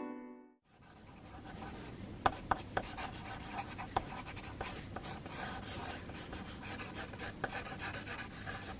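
Pencil scratching across paper in quick sketching strokes, starting about half a second in, with a few sharper ticks among the strokes.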